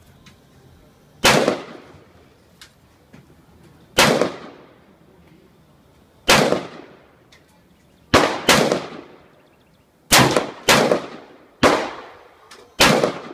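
Gunshots on a shooting range: nine sharp reports at irregular intervals, some in quick pairs about half a second apart, each followed by a short ringing echo.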